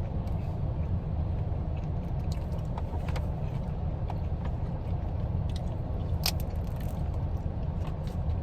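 Eating sounds inside a car: scattered clicks and crackles of seafood shells and takeout packaging being handled and chewed, the sharpest a little past the middle, over a steady low rumble of the car.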